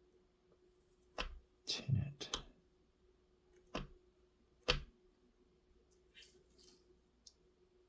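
A few short knocks and clicks of tools and wire being handled during soldering work, one of them a brief rattling cluster, over a faint steady hum.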